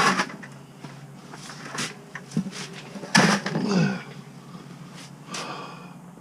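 A few sharp clicks and knocks, with a short burst of indistinct voice about three seconds in.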